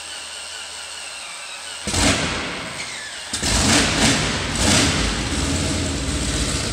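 Continental R-975 C1 nine-cylinder radial engine being started on a test stand. The starter whines as it turns the engine over, then about two seconds in the engine fires and catches, running unevenly with loud irregular bursts.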